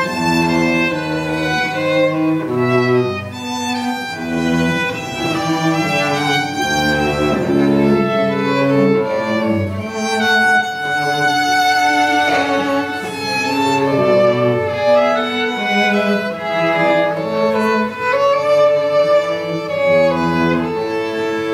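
Live chamber music from a small string ensemble: violin and cello playing together in held, bowed notes that change from one to the next.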